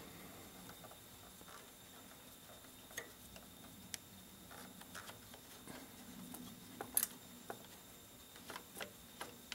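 Faint, scattered small clicks and ticks of a carburetor fuel shutoff solenoid being unscrewed by hand from a Kohler V-twin carburetor, metal turning on metal, with the sharpest click about seven seconds in.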